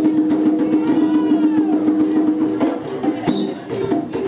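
East African drumming: hand drums beating a fast, even rhythm under a long held note that breaks off near three seconds in, after which the drumming continues more loosely.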